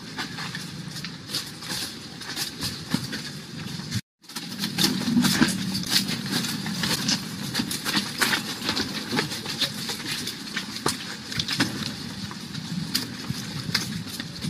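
Outdoor background noise: a steady low rumble with scattered clicks and crackles, broken by a brief dropout about four seconds in.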